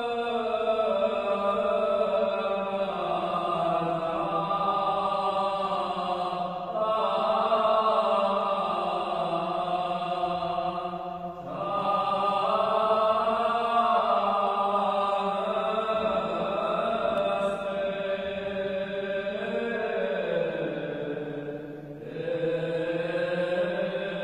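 A priest's solo voice chanting Armenian Church liturgical chant in long, held notes that step up and down, with short breaks for breath near the middle and near the end.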